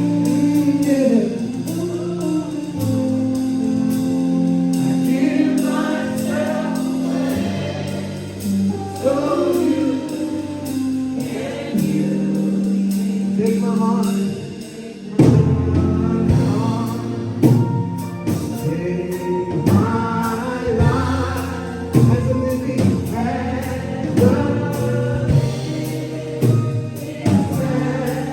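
Gospel worship music: a choir and congregation singing slow, held lines over keyboard and band accompaniment. About halfway through, a beat of sharp drum hits comes in under the singing.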